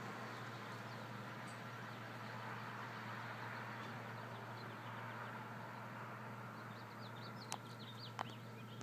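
Steady outdoor background noise with a constant low hum. Small birds chirp in a quick series near the end, with a couple of sharp clicks.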